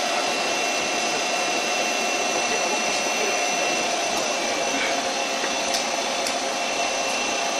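Doosan CNC lathe running: a steady whirring hiss with several constant whines, plus a few faint clicks.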